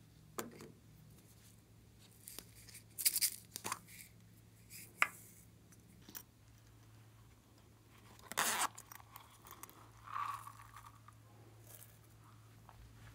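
Toppings being handled and sprinkled onto slime: scattered crinkly rustles and a few sharp clicks, the loudest burst about two-thirds of the way through.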